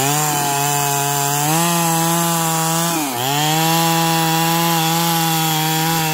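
Two-stroke Stihl chainsaw at full throttle sawing through a log, its revs climbing at the start and then holding high and steady. About three seconds in the pitch dips briefly and picks up again.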